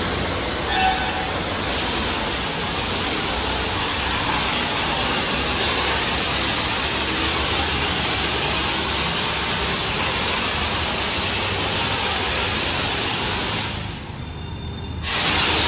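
Foam spray gun hissing steadily as it blasts snow foam over a car's body. The spray cuts out for about a second near the end, then starts again.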